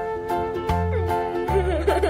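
Background music with held notes, a bass line and a steady beat.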